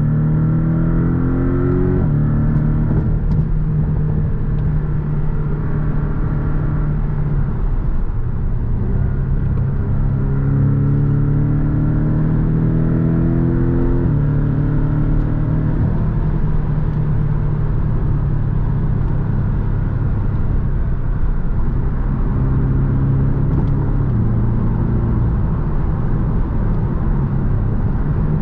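2020 Porsche 718 Boxster's turbocharged 2.0-litre flat-four engine pulling under acceleration, its pitch rising and then dropping at upshifts about two seconds in and again near the middle, then running more steadily at cruising speed over a constant road rumble.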